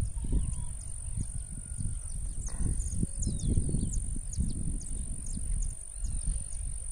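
Wind buffeting the microphone in uneven gusts, with small birds chirping now and then in the background.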